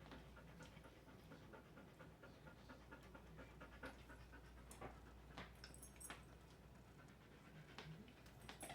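A dog panting faintly, with a few sharp clicks scattered through.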